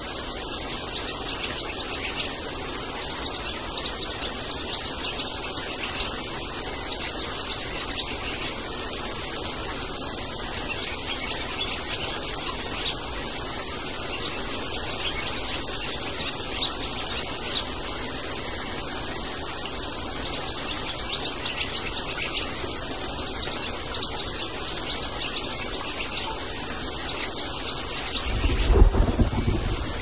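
Steady summer rain falling on thuja foliage, an even hiss of drops. Near the end a low roll of thunder swells briefly and is the loudest sound.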